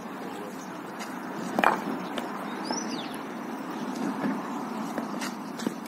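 A thrown wooden bitlles bat landing down the pitch with one sharp wooden knock about a second and a half in, followed by a few fainter clicks. A short high chirp sounds around the middle.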